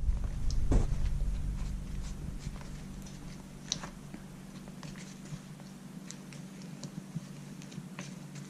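Glue and baking soda being stirred in a bowl: faint, scattered clicks and scrapes of the utensil.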